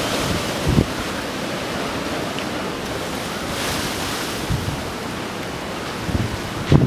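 Storm surf from a hurricane's high tide washing in, with strong wind gusting across the microphone in low thumps.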